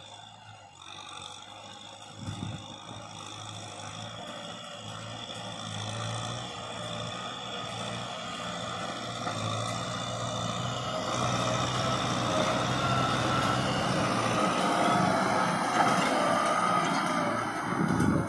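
Kubota tractor's diesel engine running steadily under load while its rear rotary tiller churns dry soil, growing louder as the tractor draws near.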